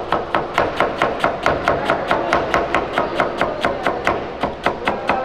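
A broad chef's knife chopping cabbage into fine julienne shreds on a plastic cutting board: quick, even knocks of the blade on the board, about five a second.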